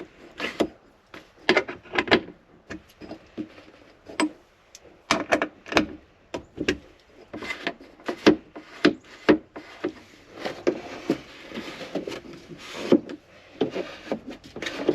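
Irregular clicks, knocks and rubbing of hand tools and metal hardware being worked by hand while a Jeep roof-panel lock is fitted.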